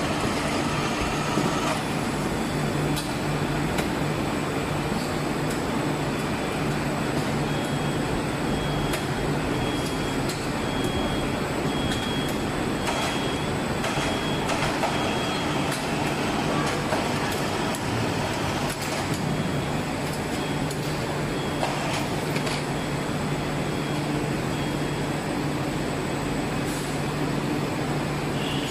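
Rotational moulding machine running: a steady mechanical hum from its drive as the mould frame turns, with a few faint clicks.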